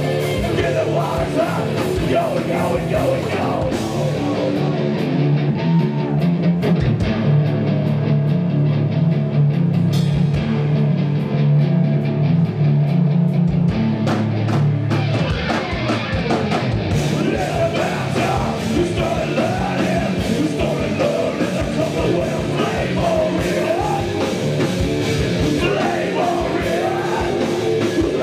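Live hard rock band playing at full volume: distorted electric guitars, bass and drums with a vocalist singing. For about ten seconds from about four seconds in the bright top end drops away and a heavy held low riff carries the music, then the full band sound returns.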